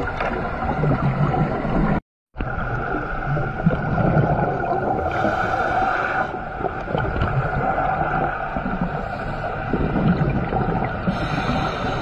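Muffled underwater noise picked up by a diver's camera on the seabed: a steady low rumble with a hum and some gurgling, dropping out for a split second about two seconds in.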